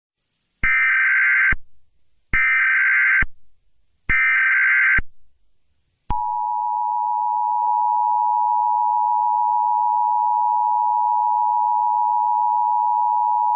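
Emergency Alert System tones: three one-second bursts of SAME digital header data, then about six seconds in a long, steady two-tone attention signal. The header and attention signal announce a Child Abduction Emergency (Amber Alert).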